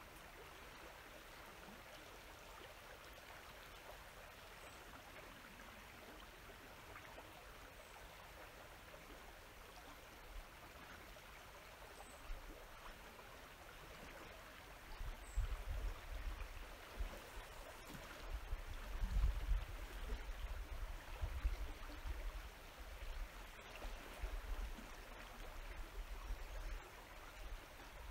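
River current flowing steadily past the bank. From about halfway through, irregular low rumbling buffets on the microphone come in over it.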